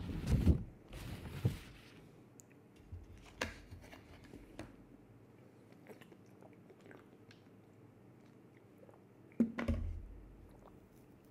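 Faint close-up handling sounds: a cluster of low bumps and a short rustle at the start, a few soft clicks in the middle, and another bump with a rustle near the end.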